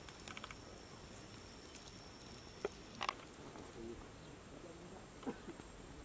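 Faint outdoor ambience: a steady high thin insect trill under a few scattered sharp clicks, the loudest about three seconds in, and a brief call near the end.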